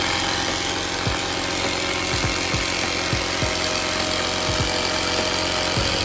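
Small 12-volt portable tire inflator running steadily with a fast, even mechanical rattle as it pumps a car tire back up to pressure.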